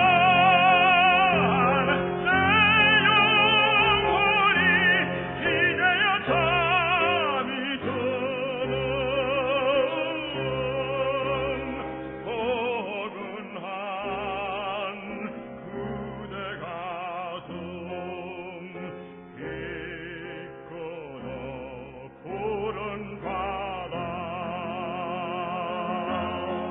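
Tenor singing a Korean art song in operatic style, with wide vibrato on sustained notes over an accompaniment; the loudest, fullest passage comes in the first half, and the music grows quieter toward the end.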